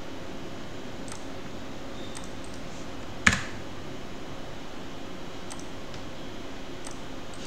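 Computer keyboard keystrokes: a few scattered light clicks and one sharp, much louder click a little past three seconds in, over steady low background noise.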